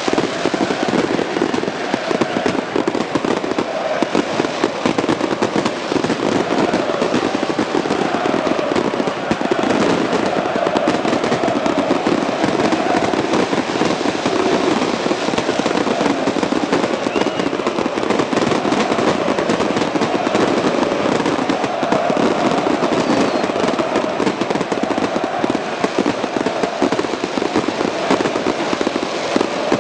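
A large crowd of football fans making a loud, continuous din in a stadium, their massed chanting carried over a dense, unbroken crackle.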